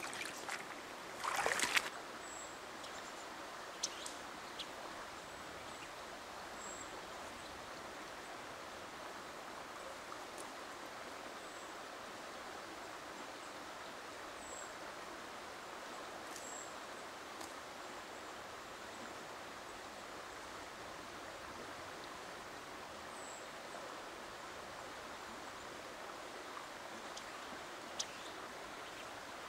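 Steady rush of river water flowing through a shallow, low pool. There is a short burst of noise about a second and a half in, and faint high bird chirps every few seconds.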